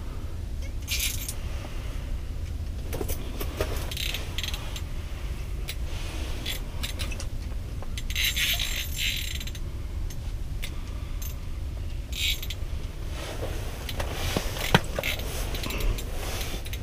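Light ice-fishing reel working against a northern pike hooked on 4-pound line: several short spells of ratcheting drag and reel clicking as the fish pulls and is cranked in, over a steady low rumble.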